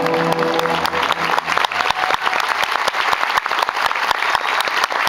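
Audience clapping over the end of the show music, which holds a few sustained notes and stops about a second and a half in, leaving only the applause.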